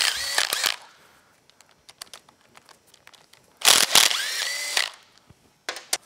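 Cordless impact driver backing out 8 mm valve-cover bolts on an ATV engine. One run stops under a second in; a second run comes midway, hammering for about a second with a rising motor whine. A few light clicks near the end.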